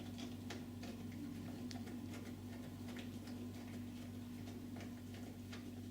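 Hand screwdriver turning a screw into a jack plug anchor in a uPVC door, giving faint, irregular clicks about two or three a second over a steady low electrical hum.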